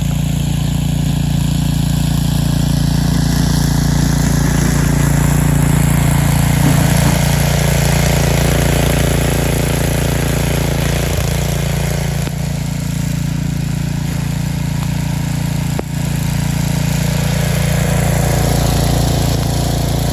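Engine of a 1999 DR Brush Mower, converted to a snow plow, running steadily at a constant speed.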